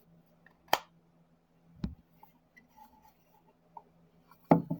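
Wooden puzzle-box pieces knocking together as they are handled: three sharp clicks, the last the loudest, over a faint steady hum.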